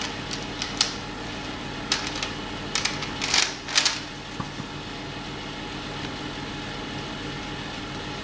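Plastic piping bag crinkling and squelching as choux pastry is squeezed out onto baking paper: a few short rustles and clicks in the first four seconds, the longest a little after three seconds and near four seconds, over a steady low background hum.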